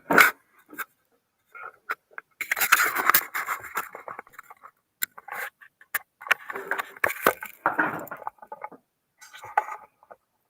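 Handling noise as objects are moved around on a desk: rustling and scraping in two stretches, with a few sharp clicks and knocks.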